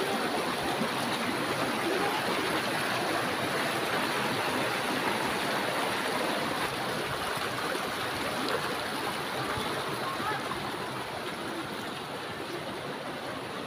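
Shallow rocky mountain stream rushing over boulders and small cascades: a steady rush of water that gets a little quieter near the end.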